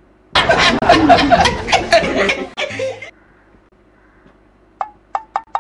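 A burst of laughter, chuckling for about three seconds. Near the end comes a quick run of short sharp ticks, closer and closer together.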